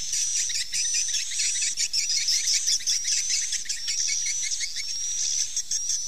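Swiftlet lure call: a dense chorus of high, thin swiftlet chirps over fast ticking, insect-like chatter, with a high note repeating about once a second.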